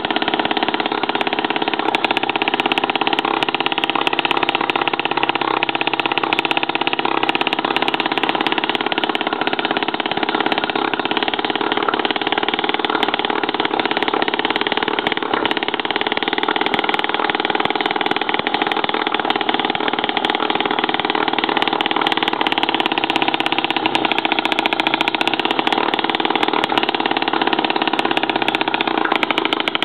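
Rowland Type C model two-stroke engine, water-cooled with dual exhausts, running steadily at a fast continuous firing rate. It runs a little more unevenly over the last few seconds.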